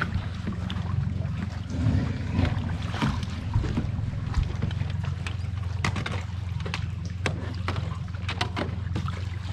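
A boat motor running steadily with a low hum, with scattered splashes and knocks as a landing net works a catfish at the water's surface.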